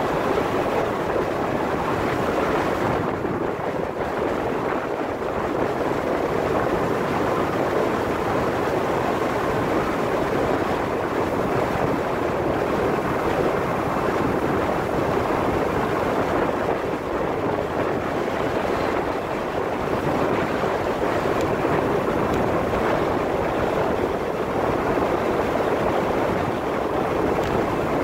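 Steady rush of wind over the microphone of a camera on a moving bicycle.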